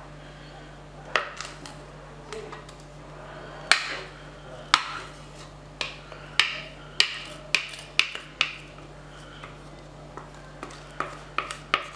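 A wooden-handled spatula knocking and scraping against a mixing bowl as thick whipped ice cream mixture is scraped out into a container: about a dozen sharp, irregular taps, the busiest stretch in the middle and a few more near the end.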